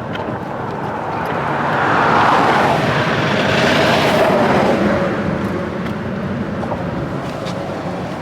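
A motor vehicle passing. Its road noise swells to a peak about two to four seconds in and then fades, over a steady background rumble.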